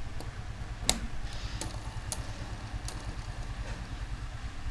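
A few sharp clicks of plastic Lego pieces being handled and snapped together, the loudest about a second in, over a steady low background hum.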